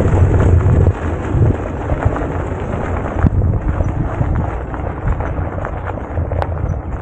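Wind buffeting the microphone over the crunch and rattle of bicycle tyres rolling on a stony gravel road, louder for about the first second.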